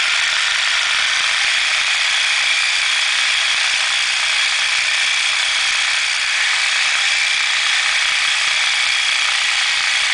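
Reciprocating saw with a Lenox carbide-grit blade cutting through 4-inch cast iron drain pipe, a loud, steady grinding without pause.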